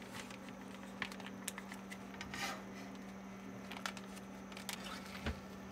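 Egg frying in butter in a nonstick pan: faint sizzling with scattered small pops and crackles, over a steady low hum.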